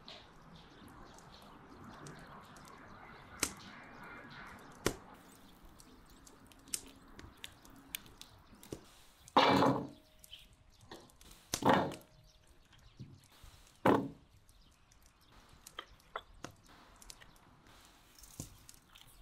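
Peeled potato wedges tipped by the handful into a stainless steel mixing bowl: three loud clattering thuds a couple of seconds apart, the first two leaving the bowl ringing faintly. Lighter clicks and knocks of handling come in between.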